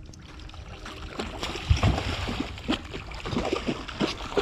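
Hooked striped bass thrashing and splashing at the water's surface: irregular splashing that grows busier from about a second in, with a heavy thump about a second and a half in.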